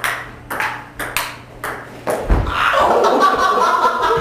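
Table tennis rally: a celluloid ball clicking off paddles and table about twice a second. About two seconds in there is a heavy thump, followed by loud laughter.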